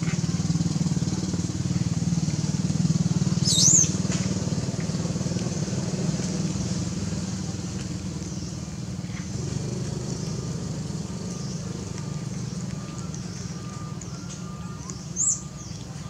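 Steady low motor drone that slowly fades, with two short, high, rising squeals from a young macaque, about three and a half seconds in and again near the end.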